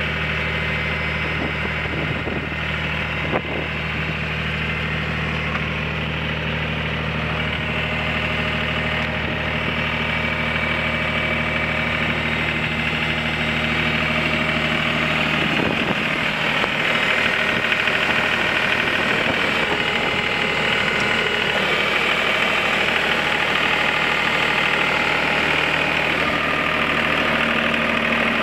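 John Deere 5310N tractor's three-cylinder diesel engine idling steadily, with one short click about three seconds in. The engine gets a little louder in the second half.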